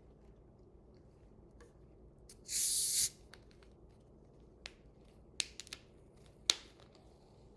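A Sprite being opened: a faint click, then about half a second of hissing as the carbonation escapes, followed by a few light sharp clicks.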